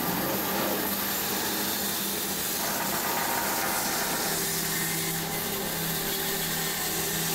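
Bandsaw running steadily, its blade cutting a wooden shotgun-stock blank along the marked outline, with a constant motor hum under the hiss of the cut.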